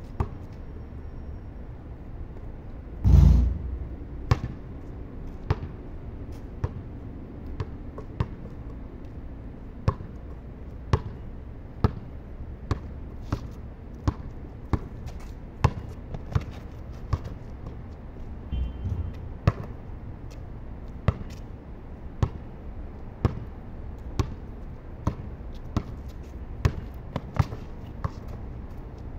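A basketball being dribbled and bounced on concrete, each bounce a sharp slap about once a second at an uneven pace. About three seconds in there is one brief, much louder rushing thump.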